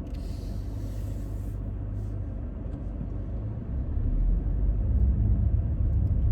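A car's low, steady rumble heard from inside the cabin, growing louder about four seconds in. A soft hiss sounds over the first second and a half.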